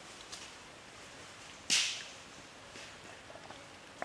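A single short, sharp swish about two seconds in, over the faint steady wash of running water.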